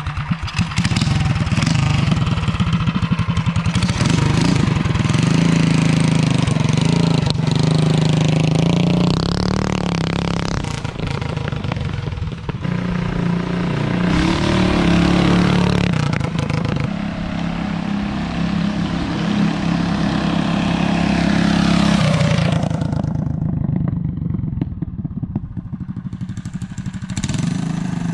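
Mini trike's small single-cylinder pull-start engine running as it is ridden, revving up and easing off several times. Near the end it drops to a quieter, duller run.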